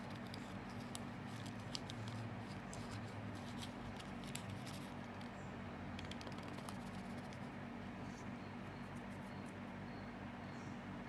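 Scattered faint clicks and small taps, the kind made by handling small hard objects, mostly in the first two-thirds, over a steady low electrical hum.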